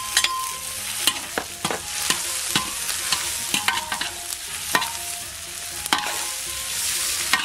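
Dried chili shreds and ginger shreds sizzling in hot goose fat in a large iron wok, while a metal spatula scrapes and taps the wok in quick, irregular strokes as they are stir-fried.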